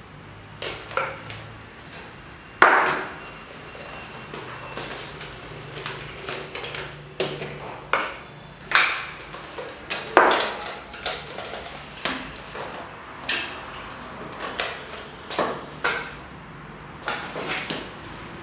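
Hard PVC pipe rollers and wooden frame pieces knocking and clattering as they are handled and fitted together, about fifteen irregular knocks, the loudest near the start and about halfway through.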